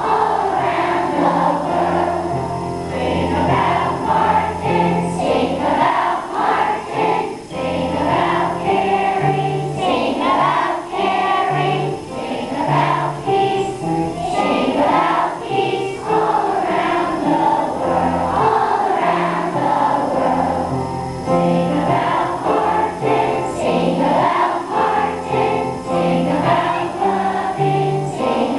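A large group of elementary-school children singing a song together, with an instrumental accompaniment carrying steady low bass notes beneath the voices.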